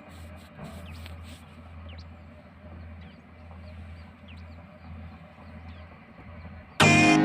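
A steady low engine drone, like a truck idling, with faint short bird chirps over it. Loud electronic music starts abruptly near the end.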